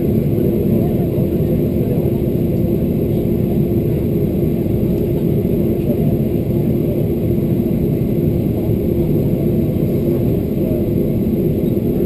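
Steady low rumble of a Boeing 737-400's CFM56-3 engines and rushing air, heard inside the passenger cabin, with a constant hum running through it.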